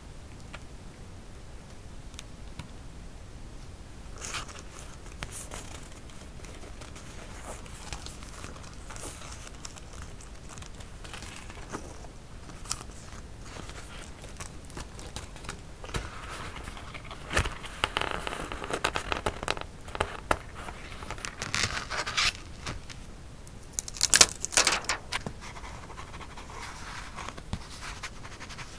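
Hands handling and arranging paper cutouts on a scrapbook journal page: rustling and scraping with small ticks and taps. It is faint at first, gets busier past the middle, and the loudest crinkling and rubbing comes a little before the end.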